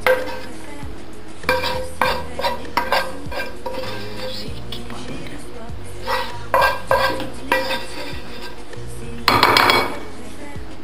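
A wooden spatula knocking and scraping against a non-stick frying pan while fusilli is pushed out onto plates: a run of short knocks and clatters, with a longer, louder scrape about nine seconds in.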